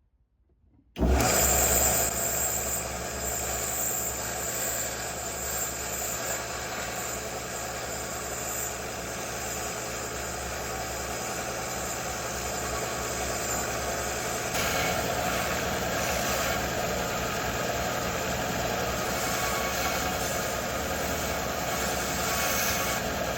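Electric power tool switched on about a second in, its motor then running steadily with a low hum, typical of metal-cleaning work on a hammer head during restoration.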